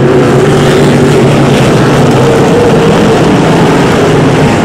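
A pack of BriSCA F1 stock cars' V8 engines racing together, several engine notes overlapping in a loud, steady din.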